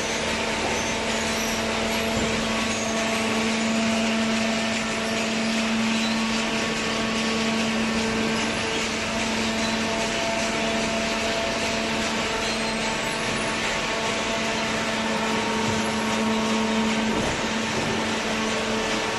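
Paper recycling baler's hydraulic power unit running steadily, a constant machine hum with a steady low tone.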